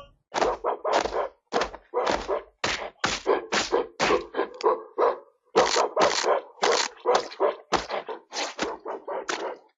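Rapid run of sharp thuds and bangs, about two or three a second with a brief pause midway: movie fight sound effects played through the call.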